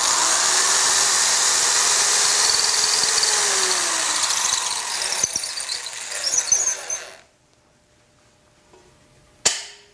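Corded electric hand drill running with a 6 mm bit, boring through a guide hole in a wooden jig into the rim of a wooden turning. It runs steadily for about five seconds, then goes weaker and uneven, and stops about seven seconds in. A single sharp click comes near the end.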